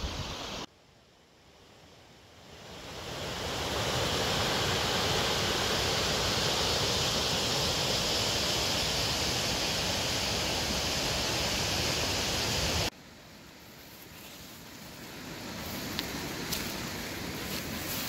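Fast-flowing River Ribble rushing over rocky rapids: a steady wash of water that fades in a few seconds in and cuts off abruptly about 13 seconds in. After that comes a fainter hiss with a few light ticks.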